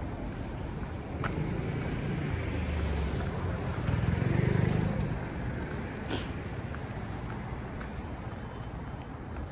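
Outdoor street ambience: a steady low rumble that swells about four seconds in and then eases, with a few faint clicks.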